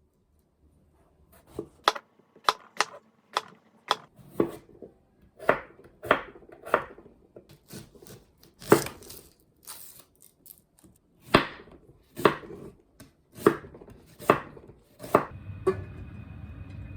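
Kitchen knife chopping food on a cutting board: sharp, uneven knocks about one or two a second. A steady hum comes in near the end.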